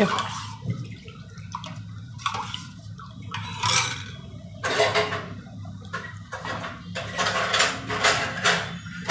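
Steel spoon stirring a thin bajra-flour and buttermilk batter in a steel vessel, scraping and clinking against the sides with the liquid sloshing, in repeated strokes about once a second.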